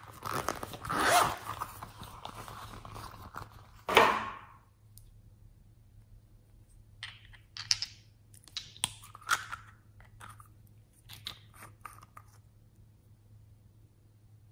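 Zipper on a plastic pencil case pulled open in a long rasp of about four seconds, ending with a louder pull. After a pause, a run of small clicks and taps comes from handling a nail polish bottle and a lipstick.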